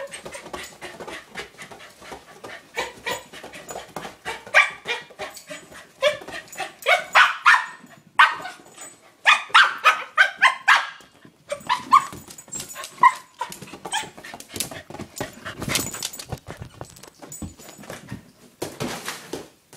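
Pembroke Welsh corgi barking and yipping in a dense run of short bursts while it attacks a blue rubber play ball, busiest in the middle, with a few scuffling knocks as it tackles the ball.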